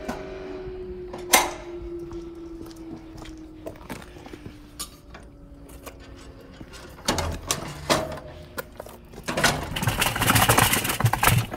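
Industrial vacuum unit's motor winding down, its hum slowly falling in pitch, with a sharp click about a second in. Later come knocks and then a loud rattle as the steel collection drum, holding gravel, is pulled out on its castors.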